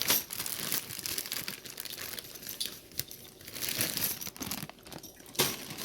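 Packaging crinkling and rustling as it is handled, with many quick small crackles, as button backs for a pin-back button maker are taken out.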